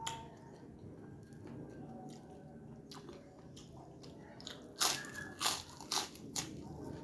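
Close-up crunching as a person bites into a crispy kerupuk cracker, about four sharp crunches in quick succession near the end.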